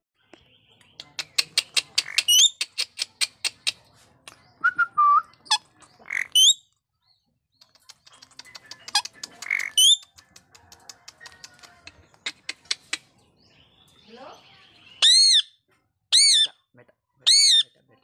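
Indian ringneck (rose-ringed) parakeet calling in its cage: a quick run of sharp clicks in the first few seconds, scattered short squawks, and near the end three loud arched screeches about a second apart.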